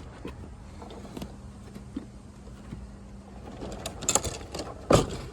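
Loaded wooden drawer rolling on caster wheels, a low rumble, then a few sharp knocks about four and five seconds in as it moves and bumps.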